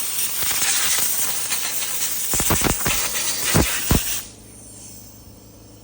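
A loud steady hiss, as of a pressurised jet, that cuts off abruptly about four seconds in, with several sharp knocks just before it stops; a low steady hum remains after.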